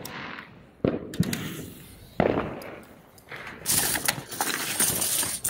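Firework bangs, about three, each with an echoing tail, followed near the end by a stretch of crackling hiss.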